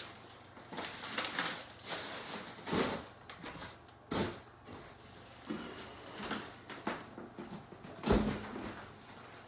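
Plastic packaging rustling and crinkling as it is handled and cleared away, with several dull knocks; the loudest, a deep thump, comes near the end.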